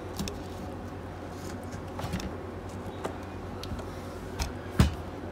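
Light scattered clicks and scrapes of a plastic playing card being worked along the edge seam of a Samsung tablet to prise the glued display free, with one sharper click near the end.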